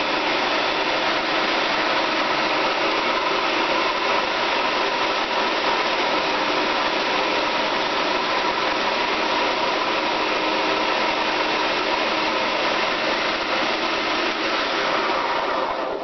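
Small food processor motor running steadily at full speed, blending a thick ground-nut cookie dough that is just starting to form a ball. It stops abruptly at the very end.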